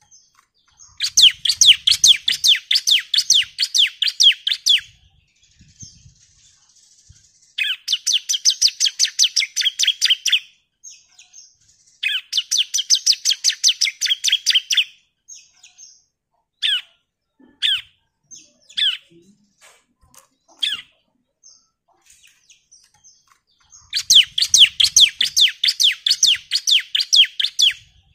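Bar-winged prinia (ciblek) singing in its rapid-fire 'nembak' style: four long bursts of sharp, quickly repeated high notes, about five a second, each burst lasting three to four seconds. A handful of single call notes fall in the gap between the third and fourth bursts.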